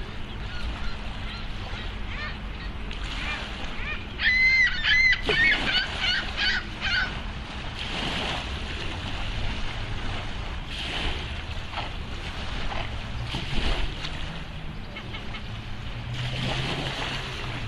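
Swans calling: a quick run of honking calls about four seconds in, lasting roughly three seconds, over steady water and wind noise.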